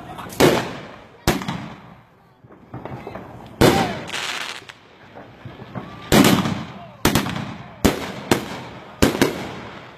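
Aerial firework shells bursting overhead: about nine sharp booms at irregular spacing, each trailing an echo, with a crackling hiss for about a second after the one near four seconds in.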